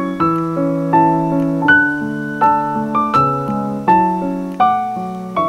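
Background piano music: a slow, gentle melody of single struck notes, about one every three-quarters of a second, over held lower notes.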